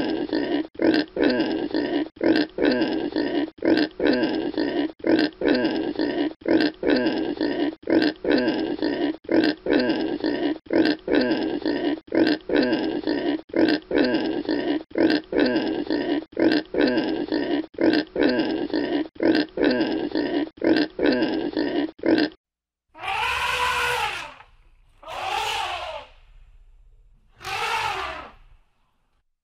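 Pig grunting in a fast, even run of short grunts, about three every two seconds, that stops abruptly. Then come three loud elephant trumpet calls, each about a second long, rising and falling in pitch.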